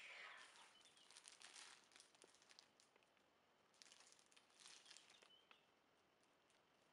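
Faint crinkling of a thin clear plastic bag being picked up and handled, in two spells of crackling separated by a short pause.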